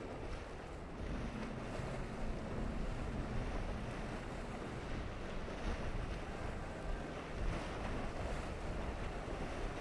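Ocean surf washing and breaking over choppy inlet water, with wind buffeting the microphone in a steady low rumble.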